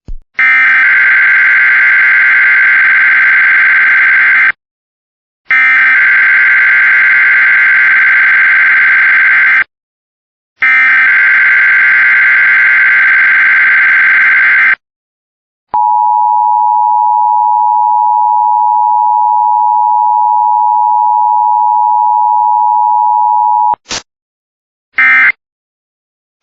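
Emergency Alert System test signal: three bursts of the SAME digital header, a shrill warbling data tone, each about four seconds long and a second apart. Then the two-tone attention signal (853 and 960 Hz) sounds steadily for about eight seconds, followed by short end-of-message data bursts near the end.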